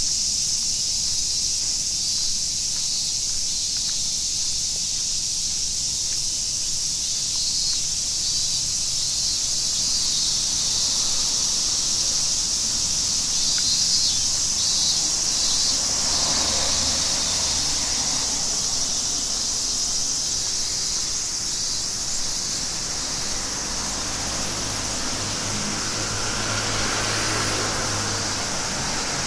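Steady high hiss of rain falling.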